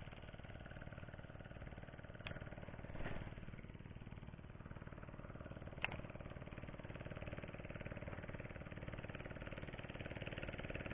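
Faint, steady running of a distant engine, with a couple of short clicks about two and six seconds in.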